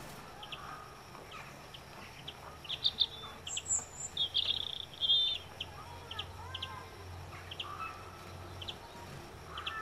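Small songbirds chirping at a feeder: short, scattered high calls that crowd together about three to five seconds in.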